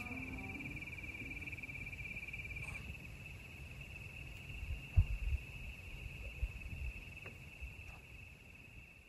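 Crickets trilling: one steady, high-pitched pulsing trill, over a low rumble with a single low thump about five seconds in.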